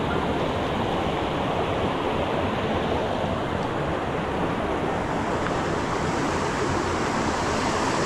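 Steady rush of running water, an even, unbroken noise.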